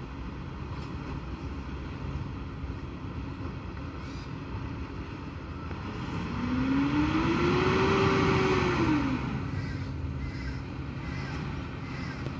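Volvo recycling truck's diesel engine running at low revs, then revving up about halfway through and easing back down a few seconds later as the truck pulls forward.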